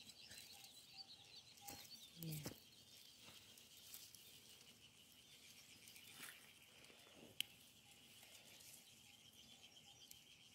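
Faint, steady high-pitched chirring of insects, with a few soft rustles and one sharp click as strawberry plants are handled during picking.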